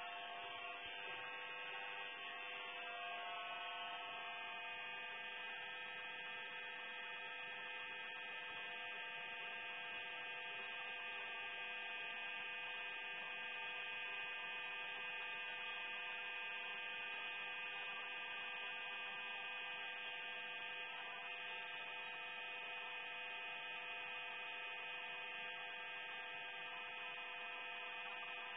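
Steady electrical hum made of many stacked tones, from the oxyhydrogen (HHO) generator's electrolysis power supply drawing about 13 A while the torch burns; the tones waver slightly in the first few seconds, then hold steady.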